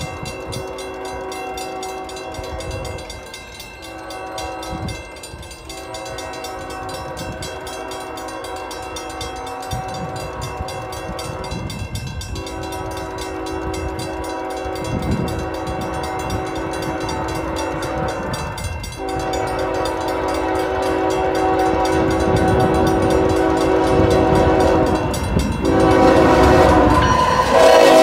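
Diesel freight locomotive's multi-tone air horn blowing a series of long blasts, with short breaks, for a grade crossing. The horn and the low rumble of the loaded coal train grow louder as it approaches, and are loudest near the end as the locomotive reaches the crossing.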